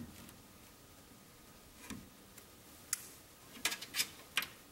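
A handful of faint, short clicks and taps of a metal pick and needle-nose pliers against a plastic wire-harness connector as it is squeezed and pulled off a circuit board, with several clicks bunched near the end as it comes free.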